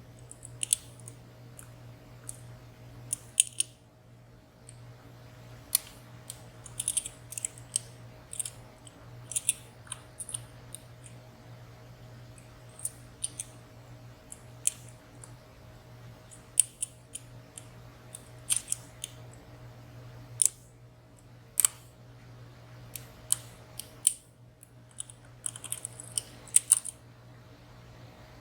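Lock picks clicking and scraping inside the keyway of a WSW W10 padlock as its sliders and pins are worked one by one: irregular small ticks and clicks, some in quick clusters, over a steady low hum.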